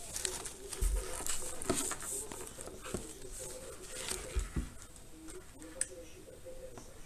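Handling noise from a small action camera: clicks and scrapes of fingers on its case and buttons, with a few dull knocks on a wooden tabletop as it is set down and picked up.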